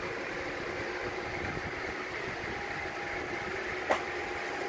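Steady running noise of the cooling fan in a GS36B tetrode linear amplifier, with a faint steady tone through it. A single sharp click comes near the end.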